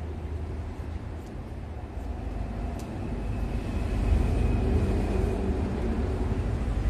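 Low rumbling noise that grows louder about three to four seconds in, with a few faint sharp clicks.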